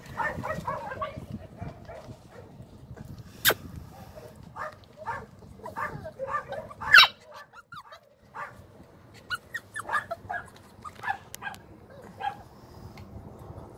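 Puppy giving short, high yips and barks on and off, the loudest about seven seconds in.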